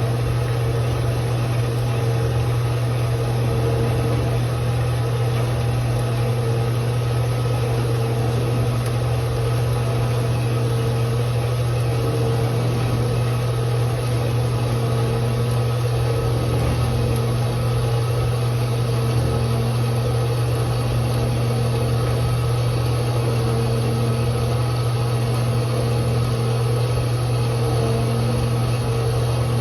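Bandsaw running steadily, a constant motor hum with a fixed higher tone over it.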